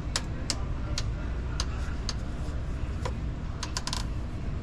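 Sharp, irregular clicks and ticks, about a dozen of them, with a cluster of quick ones near the end, over a low steady rumble, from hands and tools working on the Jeep's radiator.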